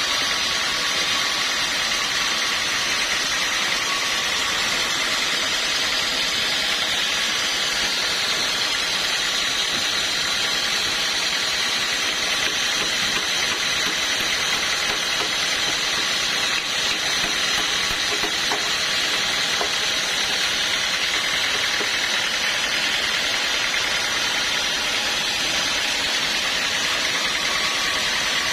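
Sawmill machinery running steadily, a continuous mechanical hum with a hissing edge that holds unchanged throughout.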